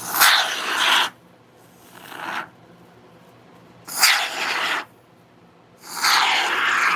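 Aerosol can of Gaps & Cracks expanding foam sealant hissing through its straw applicator in four short spurts, each about a second long, as foam is dispensed; the second spurt is weaker.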